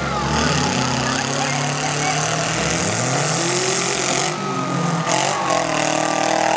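Several small-car engines revving and running hard in a mini-car demolition derby, their pitch rising and falling as the cars accelerate and back off.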